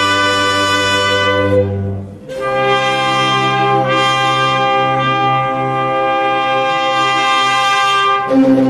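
Classical-style instrumental wedding processional music for a bride's entrance: long held chords that break off briefly about two seconds in, then a new chord. A new low note enters near the end.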